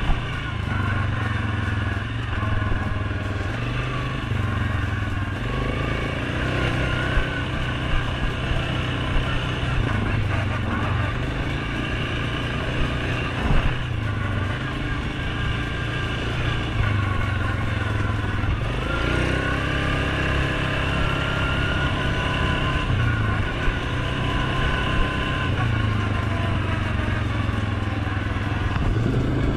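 A Suzuki King Quad 750 ATV's single-cylinder four-stroke engine running while riding, its pitch climbing as it speeds up about two-thirds of the way through. A few short, sharp knocks break in along the way.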